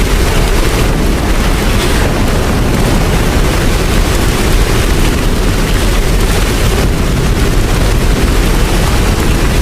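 Steady, loud rain with a deep, continuous rumble underneath.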